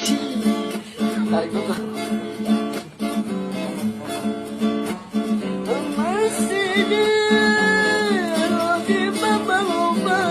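Music: rapidly plucked guitar, with a solo voice coming in about six seconds in, singing long held notes with ornamented slides.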